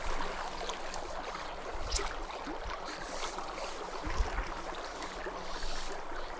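Small spring creek running over shallow riffles: a steady rush of water.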